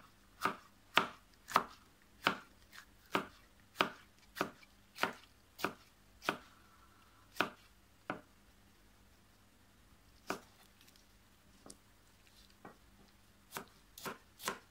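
Kitchen knife dicing yellow bell pepper on a cutting board: sharp knocks of the blade against the board, about two a second for the first six seconds, then fewer and more widely spaced, with a short run again near the end.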